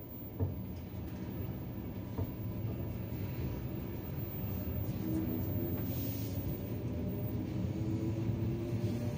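Low rumble heard inside a train carriage as the train gathers speed, growing steadily louder, with a faint pitched drive whine rising slowly from about halfway through. Two short clicks come in the first few seconds.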